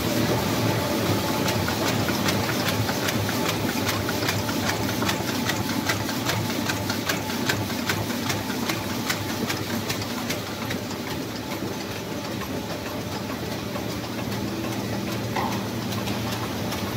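Paper box-making machinery running: a steady mechanical hum under a fast, regular clatter, which thins out about two-thirds of the way through.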